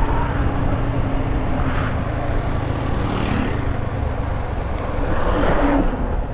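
Motorcycle engine running steadily at cruising speed, heard from the rider's action camera, with wind rushing over the microphone.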